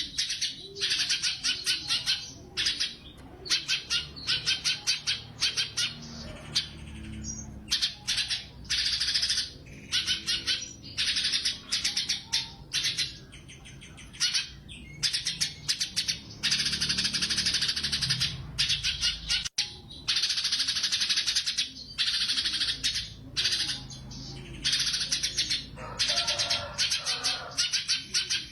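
Cucak cungkok songbird in full song: high-pitched bursts of rapid trilled notes, one after another with short gaps.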